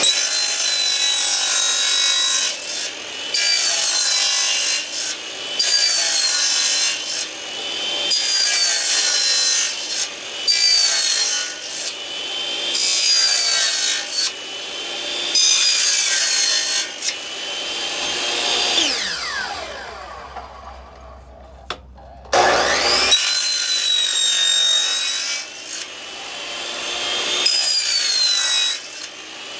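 Electric chop (mitre) saw making a rapid series of short cuts into a laminate floorboard, one every second or two, its high whine dipping under load with each cut. About 18 seconds in the saw is let go and winds down. Around 22 seconds it starts up again with a rising whine and the cuts resume.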